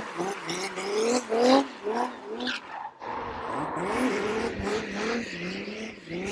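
Turbodiesel drift car's engine revving up and down in quick repeated rises and drops while sliding, with tyres skidding.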